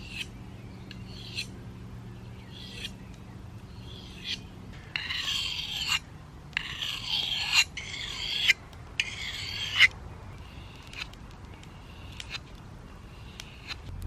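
A songbird singing in short phrases, with a run of louder, longer phrases in the middle and quieter ones before and after.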